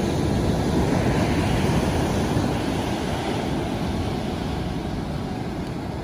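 Ocean surf washing in: a steady rush of breaking waves that swells in the first second and slowly fades over the next few seconds.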